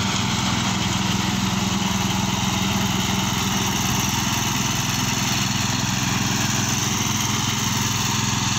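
Mini tractor engine running steadily under load, driving a rear-mounted rotary slasher whose spinning blades are cutting grass. A constant engine hum with a hiss over it, unchanging throughout.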